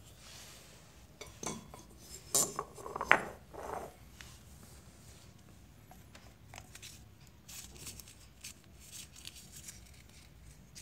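Metal moped engine parts clinking and knocking as they are handled, several sharp strikes in a cluster with the loudest about three seconds in as the finned aluminium cylinder is set down on the floor; lighter clicks and rubbing follow.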